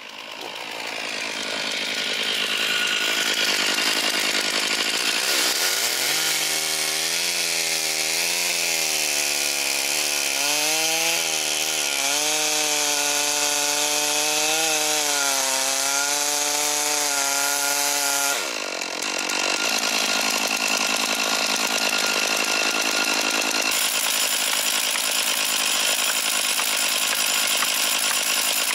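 Gas chainsaw running at high speed and cutting wood, its engine note wavering under load from about six seconds in; near the middle it dips briefly, then it carries on cutting.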